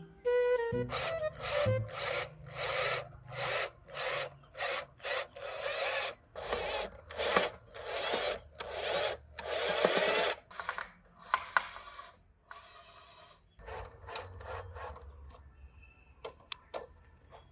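Cordless drill boring holes into plastic bottles, run in many short bursts with brief pauses between them. The bursts die away after about eleven seconds, and a few fainter clicks follow.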